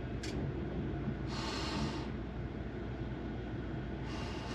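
A person breathing close to the microphone: two long breaths, one about a second in and one near the end, over a steady low rumble.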